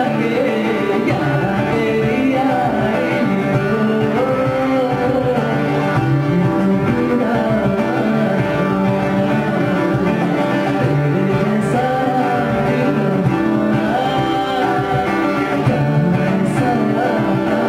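Male voice singing live with acoustic guitar and cajon accompaniment.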